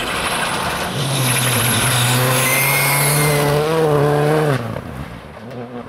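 Škoda Fabia R5 rally car's turbocharged four-cylinder engine running hard as the car passes at speed, a steady high note over tyre and road noise. About four and a half seconds in, the note bends down and drops away sharply as the car goes by.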